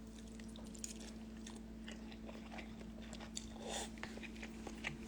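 Faint sounds of someone eating instant ramen: quiet chewing and a scatter of small clicks, over a steady low hum.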